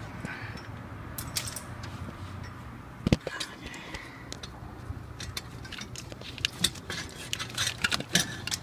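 Scattered metallic clinks and taps of hand tools and metal engine parts being handled, with one sharper knock about three seconds in, over a low steady hum.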